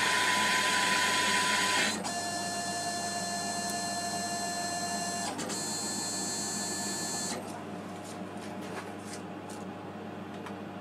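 Emco PC50 CNC lathe running a finishing threading pass on a brass rod: the axis drive motors whine at several steady pitches over the spindle drive. The pitch changes about two seconds in, dips briefly near five seconds, and the whine stops after about seven seconds when the spindle comes to rest, leaving a quieter hum with a few faint ticks.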